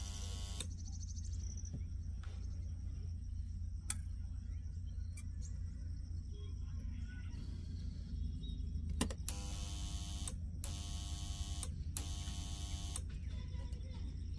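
Steady low electrical hum, broken by a couple of sharp clicks, then three buzzes about a second long each, evenly spaced, near the end.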